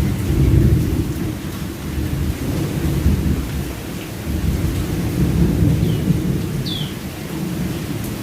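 Thunderstorm: a low rumble of thunder that swells and fades over steady rain. Two short falling chirps sound near the end.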